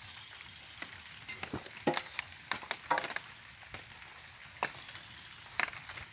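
Irregular light clicks and knocks, about a dozen, over a faint steady hiss; no engine running.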